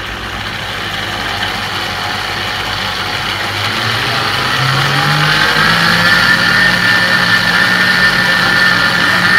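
Small electric appliance motor running, its whine rising in pitch and getting louder over the first six seconds or so, then holding steady.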